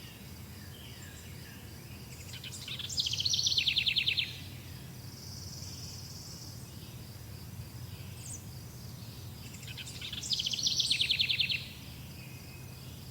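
A songbird sings the same short, rapid trilled song twice, about seven seconds apart, each phrase stepping down in pitch toward its end. A steady high insect drone, typical of crickets, runs beneath.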